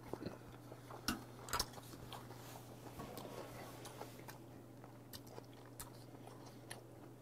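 Mouth sounds of a man chewing a bite of rolled omelette topped with sea urchin: a few soft wet smacks in the first two seconds, then quieter chewing with occasional small clicks.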